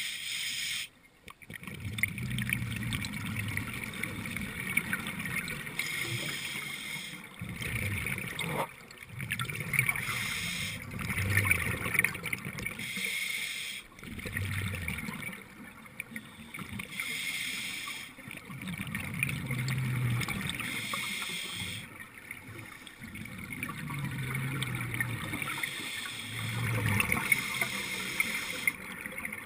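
Scuba breathing underwater through a regulator: the hiss of each inhale alternates with the bubbling rumble of the exhaled bubbles, a breath every few seconds.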